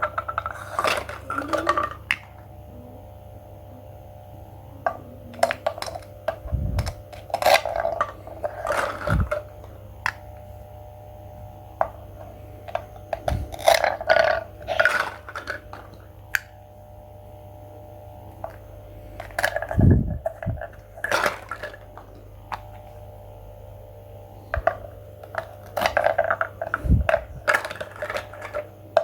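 Small dishes and utensils clinking and clattering in short bursts every few seconds, with a few dull knocks, over a steady low hum.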